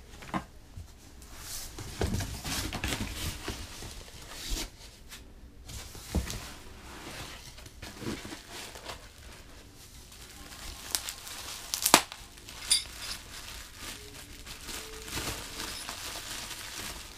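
Cardboard box flaps, packing material and bubble wrap rustling and crinkling as parts are unpacked by hand, with a sharp knock about twelve seconds in.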